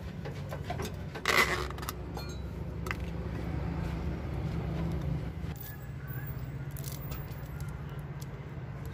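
Light metal clinks and scrapes of truck suspension parts and tools being handled, with one louder scrape about a second and a half in, over a steady low mechanical hum.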